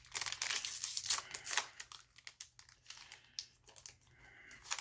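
A foil booster-pack wrapper crinkling as trading cards are handled. The crinkling is dense for about the first second and a half, then thins to a few scattered soft clicks and rustles.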